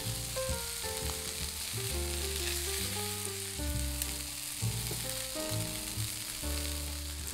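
Beef-and-pork hamburger patties sizzling steadily in a non-stick frying pan as they sear in their own fat over medium-low heat. Soft background music plays underneath.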